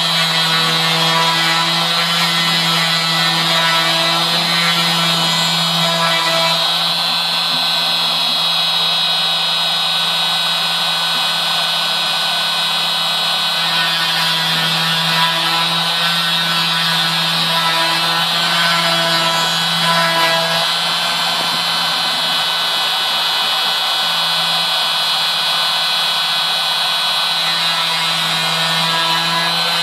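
CNC router spindle running steadily with a high whine over a low hum as a small milling bit cuts clock gears out of a wooden board.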